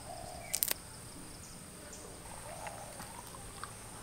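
Insects chirring steadily at a high, even pitch, with a quick pair of sharp clicks about half a second in.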